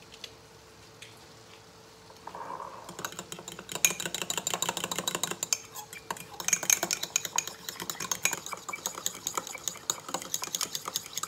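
A metal spoon stirring fast in a ceramic mug, clinking quickly and steadily against the sides. It starts about three seconds in. The spoon is beating instant sauce powder and a little boiling water into a thick, creamy paste.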